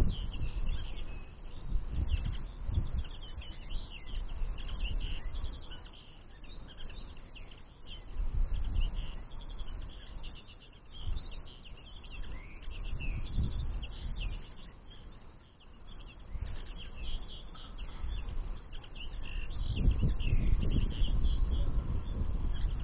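Small songbirds twittering with a continuous stream of quick high chirps. A low rumble comes and goes underneath, loudest near the end.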